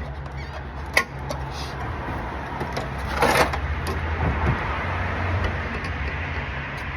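Hand tools working on the screw that holds a window air conditioner's fan motor: a sharp metal click about a second in and a short scraping rasp a little after three seconds, over a steady low hum.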